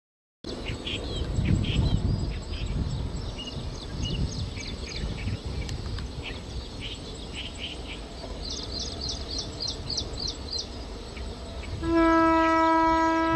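Train rumbling past in the distance while birds chirp all around, with a rapid trill a little past the middle. Near the end the diesel locomotive's horn sounds one long, steady blast, the loudest thing heard.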